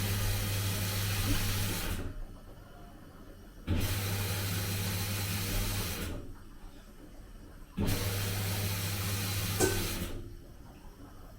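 Samsung VRT inverter washing machine motor turning the drum in three runs of about two and a half seconds. The runs are split by pauses of about one and a half seconds, the back-and-forth wash action. Each run is a steady hum with a hiss, and there is a single sharp click late in the third run.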